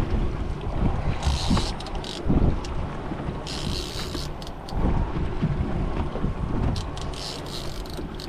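Wind buffeting the microphone on a boat at sea, over the low rumble of the boat and water, with a few short bursts of hiss.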